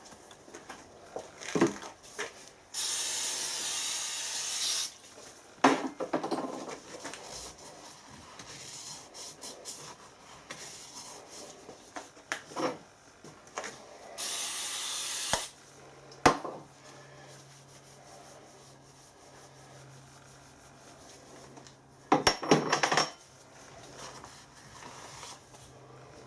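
Aerosol brake cleaner spraying in two hisses, about two seconds and then a second and a half, washing out a bearing housing. Between them come rag wiping and sharp knocks of metal tools set down on the bench.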